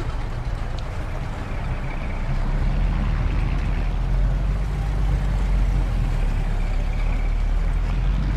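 Old motor vehicles' engines running in a steady low rumble of street traffic, a sound effect laid over the old footage.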